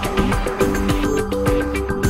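Background music with held melody notes over a steady drum beat.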